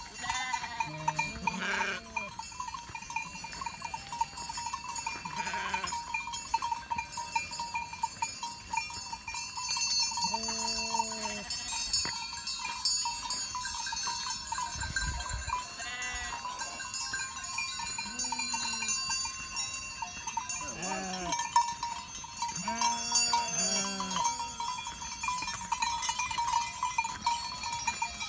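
Many livestock bells ringing and clanking steadily, with short bleating calls from the animals now and then.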